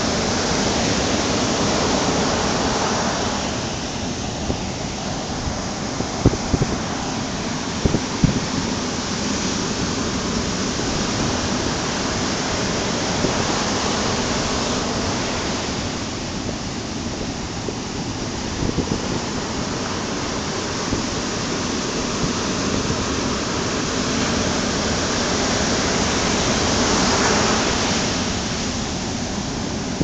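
Ocean surf breaking and washing up a sandy beach: a continuous rush of water that swells and eases as each wave comes in, loudest near the start, around the middle and again a little before the end. A few brief low thumps come through about six to eight seconds in.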